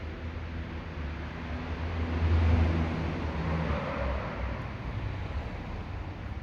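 A motor vehicle passing by: a low engine rumble that grows loudest about two and a half seconds in, then fades.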